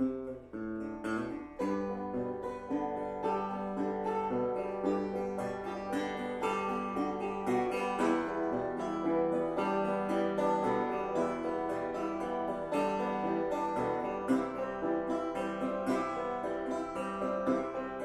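Background music of plucked acoustic strings, banjo and guitar, at a steady even pace.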